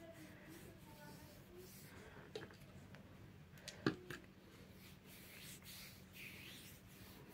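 Quiet room with a few faint, short clicks, the sharpest about four seconds in.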